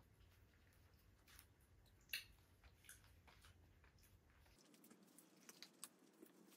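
Near silence with faint crinkles and small clicks of hands folding samosa pastry sheets on newspaper, with one sharper click about two seconds in.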